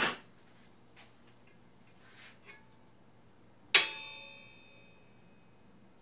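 A metal object is struck against metal: one sharp clink about two-thirds of the way in, ringing on in several clear tones for over a second. Before it come a knock at the very start and a few light handling clicks.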